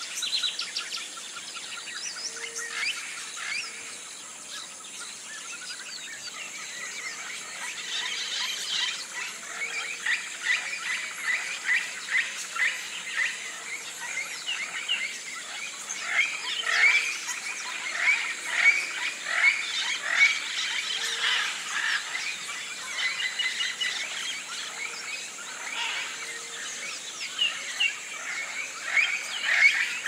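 A chorus of birds chirping and calling in many short, quick notes over a steady high-pitched hum. The chirping grows busier about eight seconds in.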